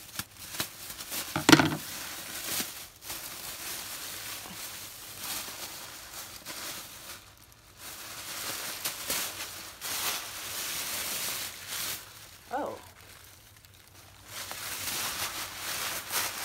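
Plastic bag and wrapping crinkling and rustling as a doll is pulled out of it by hand, in stretches with short pauses. There is a louder crackle about a second and a half in, and a brief pitched squeak-like sound near the 12-second mark.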